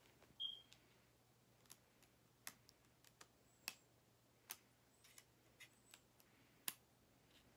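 Irregular light clicks and taps of small plastic parts being handled by fingers, a dozen or more sharp ticks, with a brief high squeak about half a second in.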